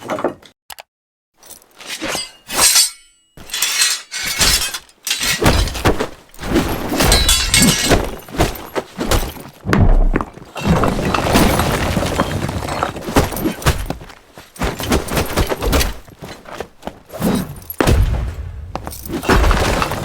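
Foley props being broken and crushed by hand: a dense, irregular run of cracks, crunches and sharp impacts. It starts with a few strikes and then runs almost without a break from about four seconds in.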